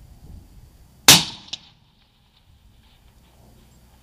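A single shot from a suppressed Remington 700 in .300 Remington Ultra Magnum, about a second in, with a quickly fading tail. A second, smaller sharp crack follows about half a second later.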